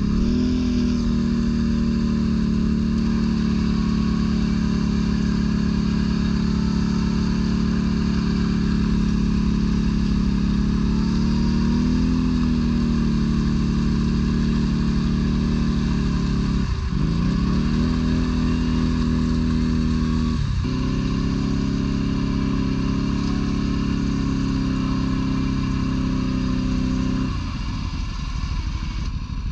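ATV engine running at steady revs under way, its pitch dipping sharply and climbing back twice in the second half, then dropping near the end.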